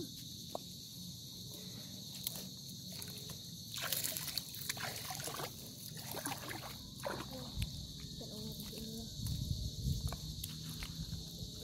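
Footsteps sloshing and splashing through shallow water and soft mud on a tidal flat, in several uneven bursts. A steady high chirring of insects runs beneath them.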